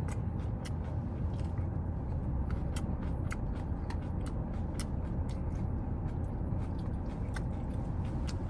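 Chewing a mouthful of salad, with small crisp crunching clicks scattered through, over a steady low rumble.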